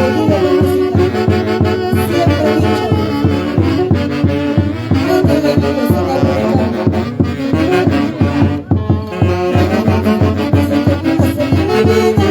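Band music from a Huancayo orquesta: wind instruments playing a melody over a steady, even beat.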